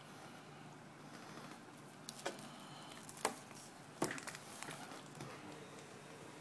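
A few faint, sharp clicks and taps from handling a tablet and a USB modem dongle, the loudest three about a second apart in the middle.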